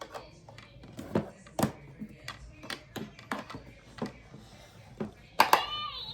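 Light, irregular clicks and taps from handling a plastic toy mini mixer, roughly two a second. Near the end comes a brief vocal sound that falls in pitch.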